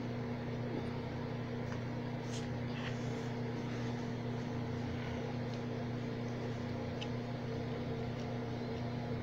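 Steady electrical hum with a low buzz, with a few faint clicks as a thin blade pries along the plastic edge of a phone.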